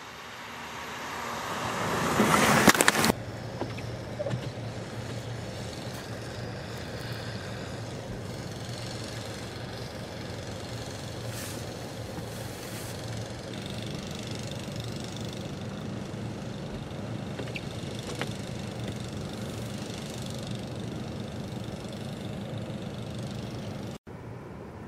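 A motor-vehicle engine and rushing noise swell louder over the first three seconds and cut off abruptly, then an engine hums steadily under windy noise.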